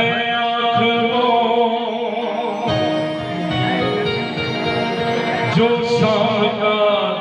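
Hindi devotional song (bhajan) singing with instrumental accompaniment: a voice gliding into and holding long notes over steady sustained instrument tones.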